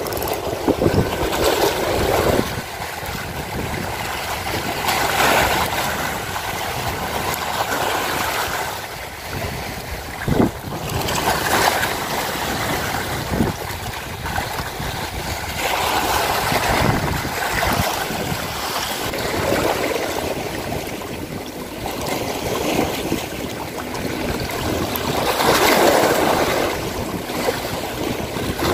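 Small sea waves washing and splashing against breakwater rocks, surging every four to six seconds, with a steady low rumble of wind on the microphone.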